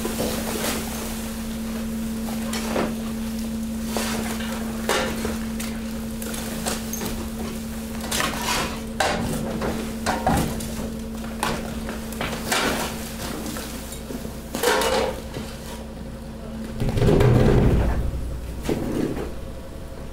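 Mixed household garbage tumbling into a compactor hopper: plastic, bags and bits of debris clattering and knocking over a steady machine hum. The hum stops about seventeen seconds in, and a louder rumbling crash follows.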